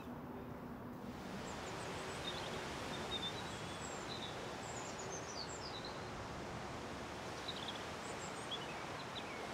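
Outdoor ambience: a steady noise bed with small birds chirping and twittering in short high calls. The birds and the noise come in about a second in, after a quieter moment with a low steady hum.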